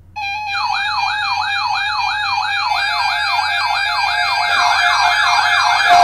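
Several weather alert radios going off at once, sounding the alarm for a Flash Flood Watch. Steady alert tones start suddenly, and a warbling siren that sweeps up and down three to four times a second comes in over them. More tones join partway through as further radios chime in.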